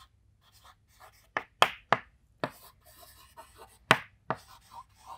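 Chalk writing on a chalkboard: a string of short, sharp taps and scratches as letters are stroked out, the strongest about a second and a half in and just before four seconds in.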